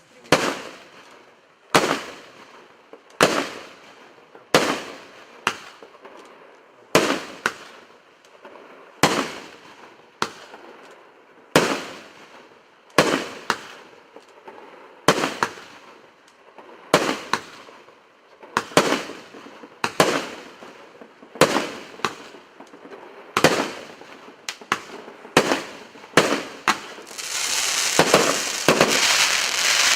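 Fireworks going off in a steady string of sharp bangs, roughly one every second or so, each trailing off. Near the end the bangs give way to a dense, continuous crackle.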